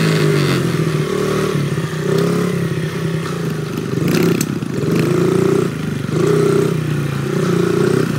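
Dirt bike engine running while riding, the revs swelling and falling back again and again as the throttle is opened and eased off.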